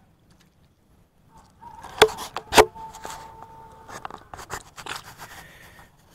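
Two sharp knocks about two seconds in, followed by a few seconds of scraping and rubbing: handling noise as the camera is moved around. A faint steady tone sounds for a moment after the knocks.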